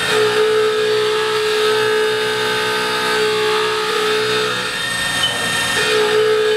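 Haas VF-4 CNC vertical mill dry-cutting 1018 steel with a 1/2-inch IMCO IPT7 carbide end mill at 200 inches per minute, the cut giving a steady tone. The tone drops out for about a second past the middle, then comes back.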